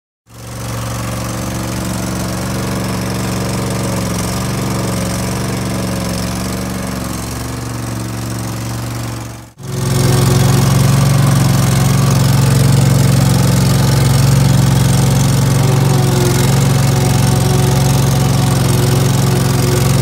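Case 1816B skid steer's engine running steadily. After a brief break a little before halfway, it is heard louder from the operator's seat as the loader is driven.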